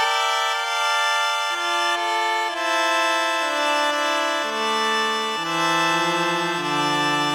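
Suiko ST-50 synthesizer playing a sustained, organ- or accordion-like patch: held chords that change about once a second, with a wavering vibrato on the low notes near the end.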